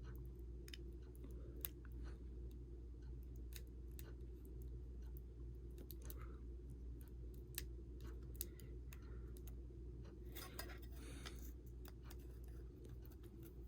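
Small scattered clicks and ticks of hand tools against an iPhone 6 while its battery adhesive strip is being worked out, with a brief scratchy rustle about ten seconds in, over a steady low hum.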